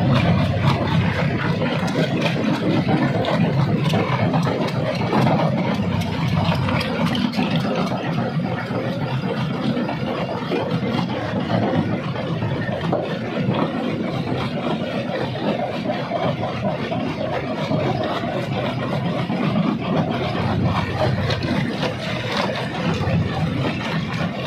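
Rock crusher machine running under load: a steady, heavy mechanical drone with many sharp cracks and knocks as rock is broken.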